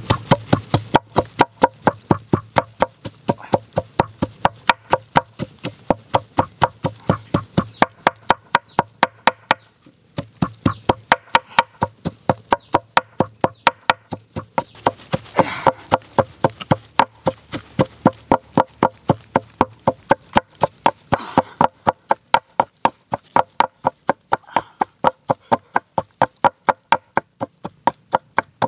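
Stone pestle pounding in a stone mortar, crushing ingredients: sharp, even knocks at about three a second, with a short break about ten seconds in.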